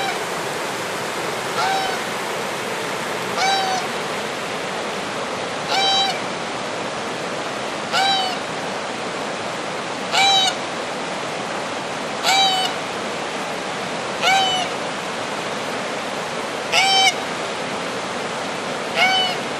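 Domestic goose of the knob-billed swan-goose type honking on the water: a short pitched honk about every two seconds, nine or so in all. Under it runs the steady rush of river rapids.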